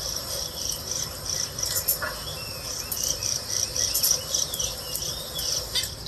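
Small pet birds chirping softly: a rapid, even run of short high chirps, about four a second, through the middle, with a few lower warbled notes and scattered light pecking clicks at the food dish.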